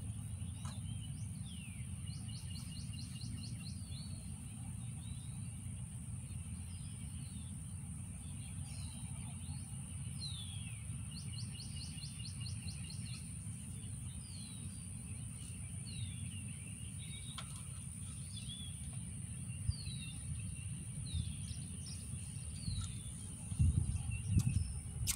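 Outdoor ambience: birds calling with repeated short falling chirps and two rapid trills, over a steady low rumble and a steady high whine. A few louder low thumps come near the end.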